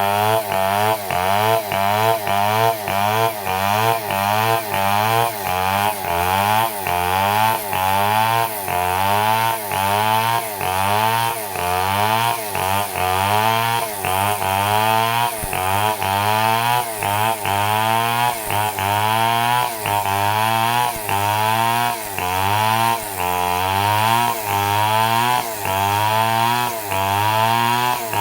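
Stihl MS 250 two-stroke chainsaw running at full throttle as it rips through a log lengthwise. Its engine note sags and recovers over and over, about once or twice a second, as the chain loads in the cut.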